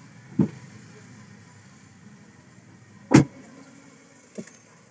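Three knocks from plastic interior trim being handled in a car's cabin. The second, a little past the middle, is the loudest and sharpest, and a smaller one comes near the end.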